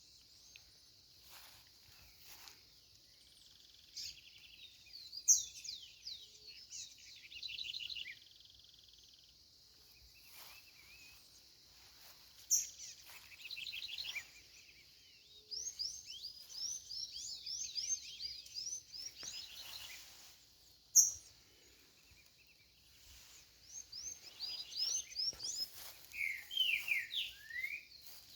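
Songbirds singing in the morning: repeated phrases of quick, high chirps and trills, with pauses between them and three sharp, louder high notes standing out.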